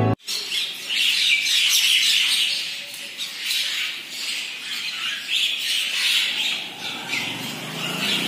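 A flock of birds at a hanging feeder chattering and squawking in a dense, continuous jumble of calls.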